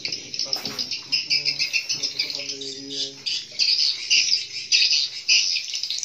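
Dense, unbroken high twittering and chattering of many edible-nest swiftlets in a swiftlet house.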